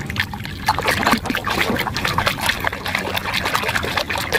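Water splashing and sloshing in a plastic basin as a hand swishes a muddy plastic toy animal through it to rinse it: an irregular run of small splashes and drips.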